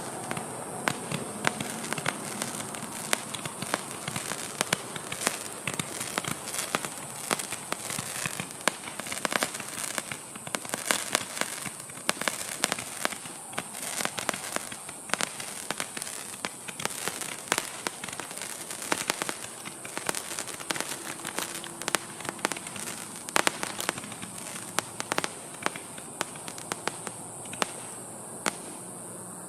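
Big Shotter 'Gatling Gun' gender-reveal firework going off: a dense, irregular run of sharp crackling pops over a steady high hiss, thinning out near the end.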